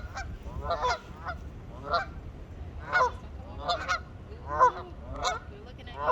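Geese honking repeatedly, one or two short calls a second from several birds.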